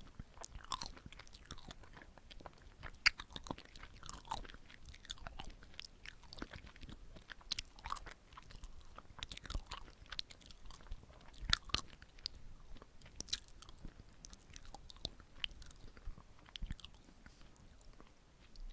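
Close-miked chewing of soft, sticky red-bean glutinous rice cake (chapssal-tteok), with wet smacking, sticky clicking mouth sounds and occasional bites.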